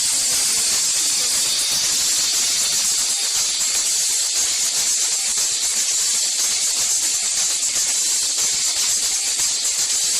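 A steady, loud high-pitched hiss, even throughout.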